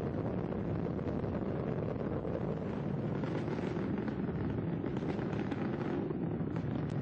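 Space shuttle launch roar from the solid rocket boosters and main engines burning during ascent: a steady, dense rumble with crackle, unbroken throughout.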